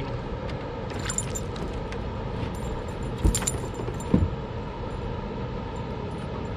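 Metallic clinking and jangling, a few times, as a hooked lure is worked free of a landed pike on an aluminium boat deck, with two dull thumps on the deck a little after the middle, over a steady low rumble.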